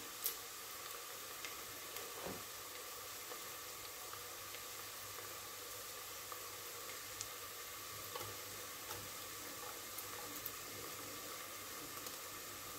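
Chopped onions frying in oil in a stainless steel pot: a steady, faint sizzle, with a few light clicks scattered through it.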